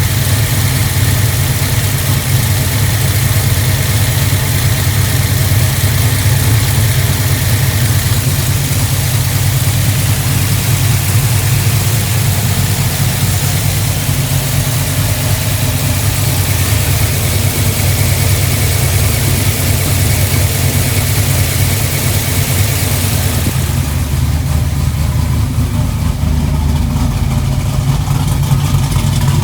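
Car engine running at a steady idle on a freshly rebuilt Holley 770 Street Avenger four-barrel carburetor, a deep even rumble. A high hiss over it drops away about three-quarters of the way through.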